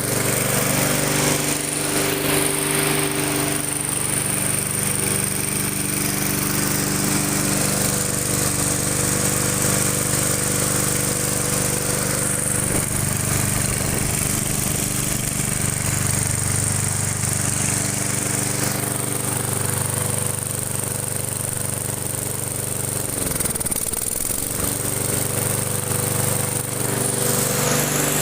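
Lawn mower engine running steadily, with a steady high whine over it. About 23 seconds in its speed dips briefly and picks back up.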